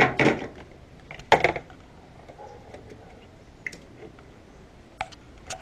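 Handling noises from work on car-audio wiring and a circuit breaker: two short, louder knocks or rustles in the first second and a half, then a few small clicks near the end.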